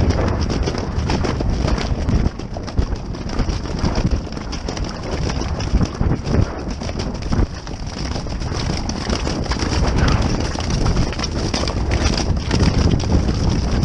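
Horses cantering over grass: a steady run of dull hoofbeats under heavy wind buffeting on the microphone.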